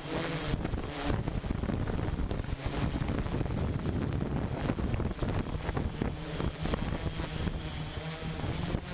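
Low, irregular rumble of wind buffeting the microphone, with a faint steady high-pitched whine throughout.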